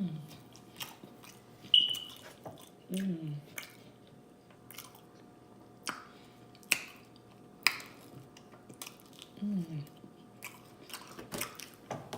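Close-up chewing and lip-smacking of a person eating pizza, with irregular sharp mouth clicks. Two short hummed "mm" sounds with falling pitch come about 3 s and 9.5 s in.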